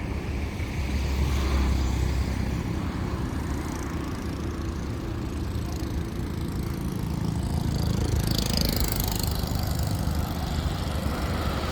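A steady low engine rumble, with a brief hiss about eight seconds in.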